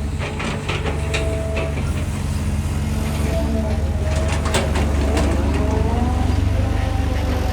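Diesel engine of a Cat 320GC excavator running steadily with a deep rumble, with a whine that rises and falls in pitch as it works. Scattered metallic clanks come through, most near the start and about halfway.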